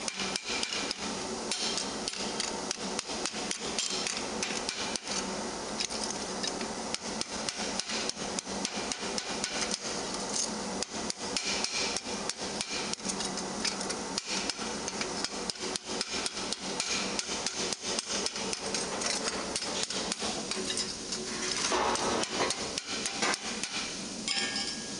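Hand hammer striking a red-hot steel gauntlet plate on an anvil stake, a quick, steady run of metal-on-metal blows as the overlapping edge of the cuff is hammered down.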